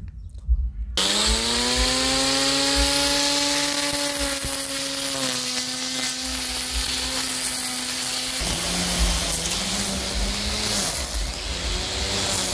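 Handheld electric cutting motor (an angle-grinder type), rigged as a homemade wheeled lawn cutter, switches on about a second in and spins up to a loud, steady whine over a hissing rush. Its pitch sags slightly and then drops clearly lower about two-thirds of the way through, wavering as the spinning blade cuts into thick grass under load.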